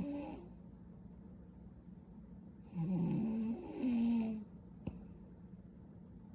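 A young woman snoring in her sleep: the end of one snore, then about three seconds in a pitched snore lasting about a second and a half in two parts. A brief click comes near the end.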